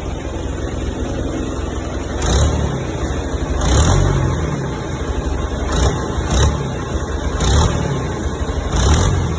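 John Deere 2130's three-cylinder diesel engine idling and revved in six short bursts, each rising and dropping back to idle, two of them in quick succession near the middle.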